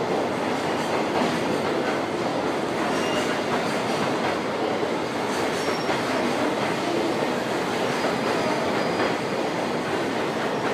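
Container freight train's wagons rolling past on the adjacent track: steady wheel-on-rail noise throughout.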